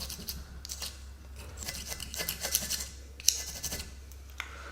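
Plastic scraper blade scraping carbon deposits off the aluminium cylinder head of a Jaguar 4.2 V8, in several bursts of quick rasping strokes, with one sharp click a little over three seconds in. A steady low hum runs underneath.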